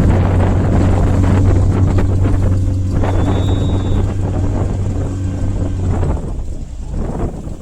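A motorboat engine running steadily with a low hum, under wind buffeting the microphone; the engine hum stops about six seconds in while the wind noise carries on.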